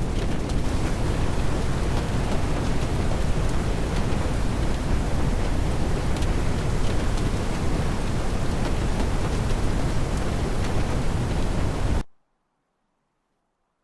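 Steady, heavy storm noise of wind and rain, with scattered faint ticks. It cuts off abruptly near the end.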